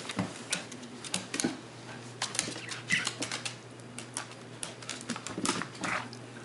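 A Scottish terrier and a cat tussling on a hardwood floor: an irregular run of claw clicks and scrabbling, with a few short noisier scuffles.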